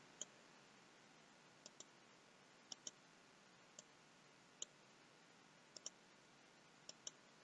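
Computer mouse left button being clicked about seven times: faint, sharp clicks, several heard as quick pairs of ticks, with near silence between them.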